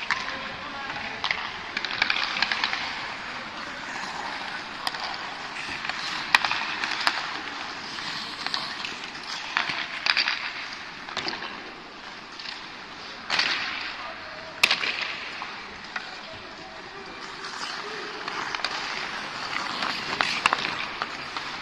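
Ice skate blades scraping and carving on rink ice, with several sharp clacks of hockey sticks and puck.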